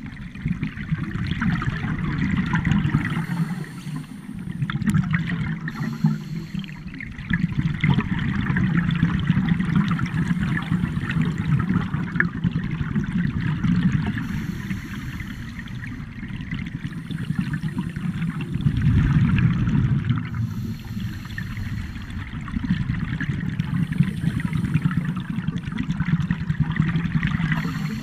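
Underwater bubbling and gurgling from scuba divers' regulator exhausts, swelling and fading every few seconds as the divers breathe out.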